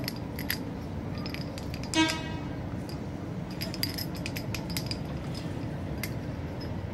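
Steady outdoor background hum with scattered light clicks and clinks, and one short pitched toot about two seconds in, the loudest sound.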